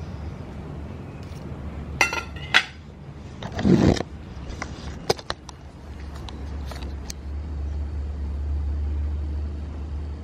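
Metal fork clinking twice against a ceramic plate, then a brief scrape and a few scattered light clicks, over a low steady rumble that grows stronger in the second half.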